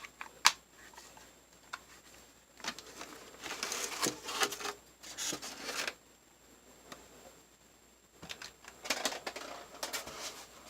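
Hands handling a plastic toy RC radio transmitter: a sharp plastic click about half a second in, then two spells of rustling and scraping.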